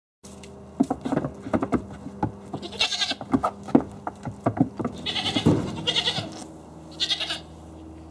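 Goats bleating, four short high calls spread through the middle and end, amid a run of sharp knocks and clatters of goats jostling on a wooden stand.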